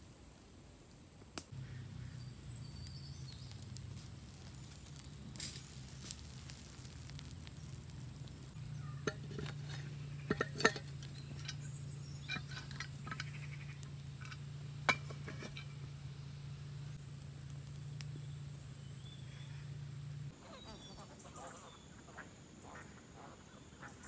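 Wood campfire crackling, with scattered sharp pops, over a steady low hum that stops abruptly near the end; faint bird calls follow.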